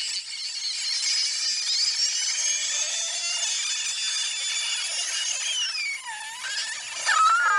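Sped-up cartoon soundtrack heard as a high-pitched, whining mix of steady and sliding tones, with one rising glide and, about six seconds in, a sharp falling glide; it grows louder just before cutting off abruptly.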